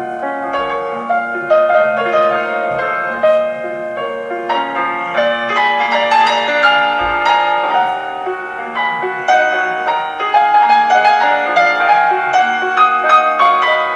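Classical piano music: flowing notes with a held bass note beneath.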